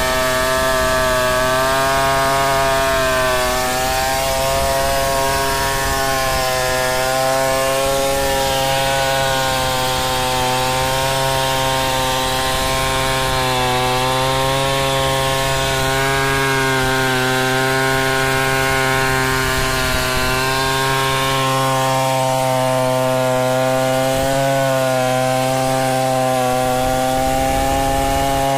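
Tecomec 070 two-stroke chainsaw running under load, ripping lengthwise along a mahogany log. Its engine note holds steady and sways gently up and down as the bar works through the cut.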